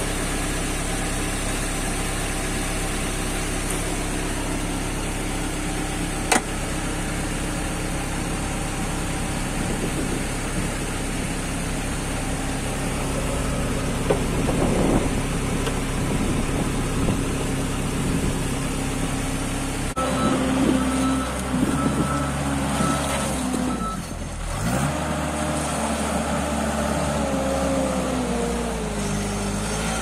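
Diesel engine of a JCB Midi CX compact backhoe loader idling steadily, with one sharp click about six seconds in. Two-thirds of the way through the sound changes abruptly, and a pitched whine slowly falls in pitch toward the end.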